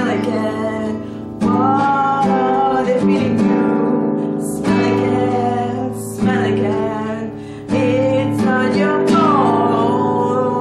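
Acoustic guitar strumming chords, changing chord every second or two, with a voice singing over it.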